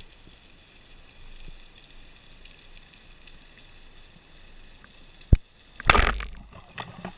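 Underwater, a faint hiss with light crackling, then about five seconds in a single sharp crack of a speargun firing. About half a second later comes a louder, rough burst of noise that tails off, as the spear strikes the fish.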